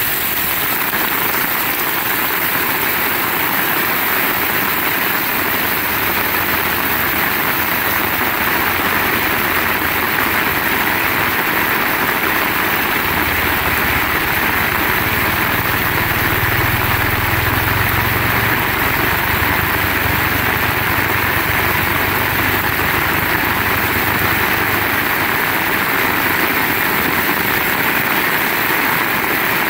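Heavy rain falling steadily, a dense continuous hiss. A low hum builds about a third of the way in and fades out near the end.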